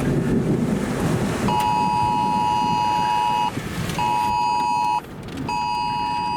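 Mobile phone's Wireless Emergency Alert tone: a steady two-note beep sounding one long tone of about two seconds and then two one-second tones, each after a half-second gap. It starts about a second and a half in, over low wind rumble.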